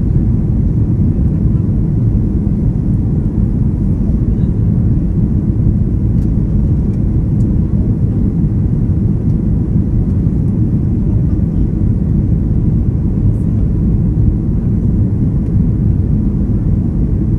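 Steady low rumble inside a jet airliner's cabin on its landing approach: engine and airflow noise, even in level throughout.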